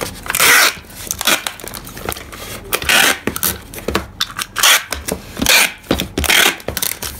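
Packing tape being pulled off a handheld tape-gun dispenser across a cardboard box. There are several short, noisy rips of tape unrolling, with clicks and knocks of the dispenser between them.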